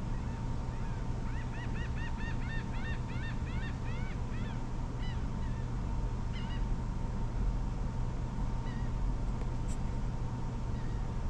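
A bird calling: a quick run of short, arched notes at about three a second that fades out after about four seconds, followed by a few single notes. A steady low hum runs underneath.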